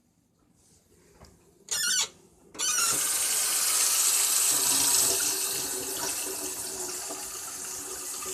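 Near silence, then a brief squeal just under two seconds in, then a kitchen tap running steadily into the sink as a fork is rinsed.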